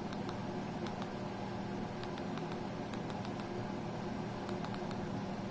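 Light, irregular clicking of an i8 mini wireless keyboard's soft silicone keys as someone types, in small clusters of taps, over a steady low hum.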